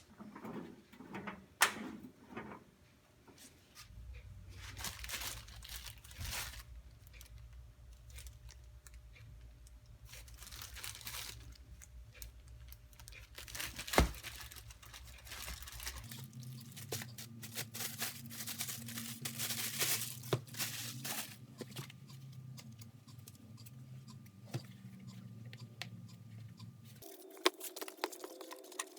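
Steady low fan hum under intermittent rustling and tearing sounds from handling material by hand, with a few sharp clicks.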